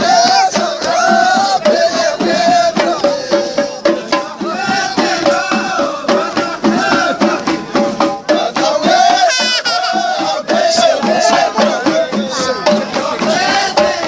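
Background folk music with fast, rattling shaker-type percussion under a wavering melody line.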